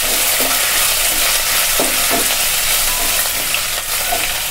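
Tempering frying in hot oil in a non-stick kadai: curry leaves, fresh coriander and dried red chillies sizzling with a steady high hiss, stirred with a wooden spatula that scrapes briefly now and then.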